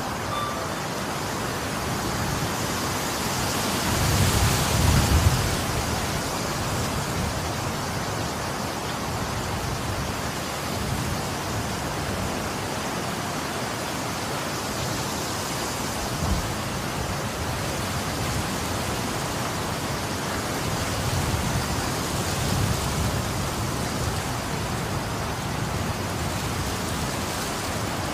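Storm wind with rain: a steady rushing that swells in strong gusts about four seconds in and again past twenty seconds, the gusts buffeting the microphone with a low rumble. A single short knock about sixteen seconds in.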